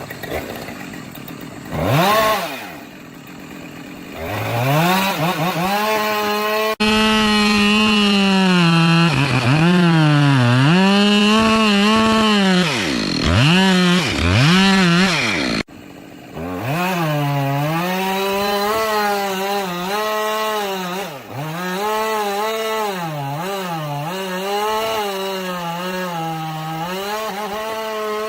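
Two-stroke chainsaw running at high revs while cutting a tree. Its pitch repeatedly drops and recovers as the chain bites into the wood. It revs up sharply about two seconds in.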